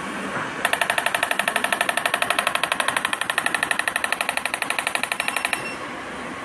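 Beauty-equipment body-treatment machine with its round handpieces on the belly, giving a rapid train of pitched buzzing pulses, about ten a second. The pulses start just under a second in and stop suddenly about five seconds later, over a steady background hum.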